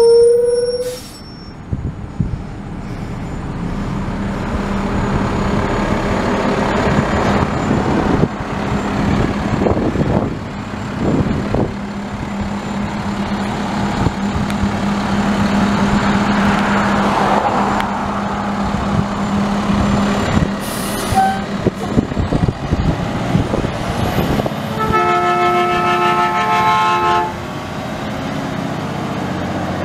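Front-loader garbage truck's diesel engine running as it pulls away and drives past. A horn toot ends about a second in, and a longer horn blast of several tones sounds near the end.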